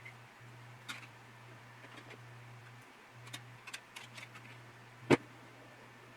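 Scattered small clicks and taps of tiny plastic model-kit parts and tools being handled on a workbench, with one much louder sharp click about five seconds in, over a steady low hum.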